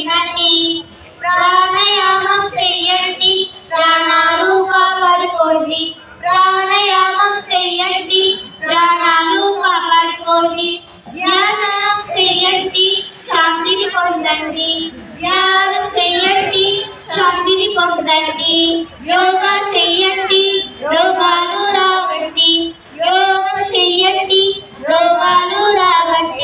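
A child singing in short phrases of a second or two, with brief pauses between them and little or no instrumental backing.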